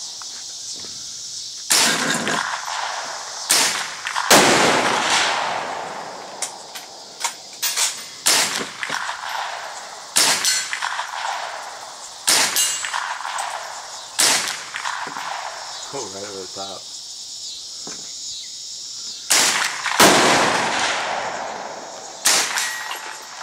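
M16-style rifle firing single shots at an irregular pace, from about one to several seconds apart, each a sharp crack with a trailing echo.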